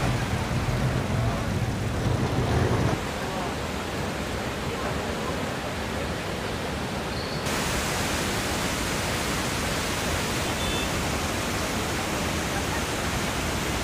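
Steady rush of the flooded Godavari river, turbulent floodwater surging past submerged riverside temples. The rush is deepest for the first three seconds, then turns hissier about halfway through.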